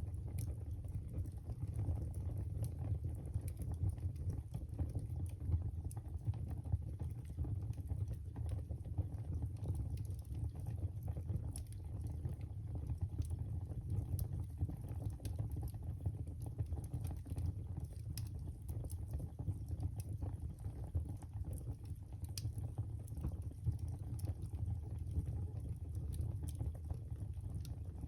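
Wood fire burning in a fireplace: a steady low rumble of flame with irregular sharp crackles and pops all through.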